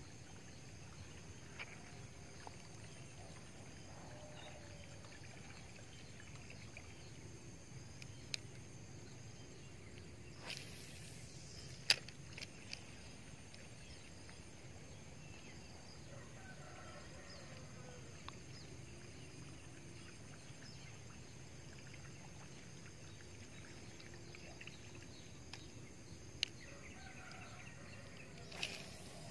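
Quiet pond-side outdoor background with faint steady noise. A fishing rod and reel being cast and worked add a few sharp clicks and two brief swishes, one about ten seconds in and one near the end, as a soft lure is cast and retrieved.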